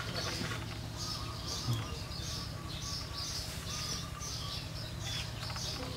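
Birds chirping in the surrounding trees: a running series of short high chirps, about two a second, over a steady low outdoor hum.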